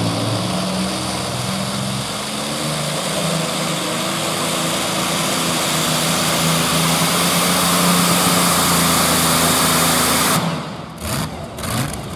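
Modified pulling tractor's Allison V-12 aircraft engine running hard at a steady high pitch under load as it drags the sled. The engine sound drops away suddenly about ten seconds in.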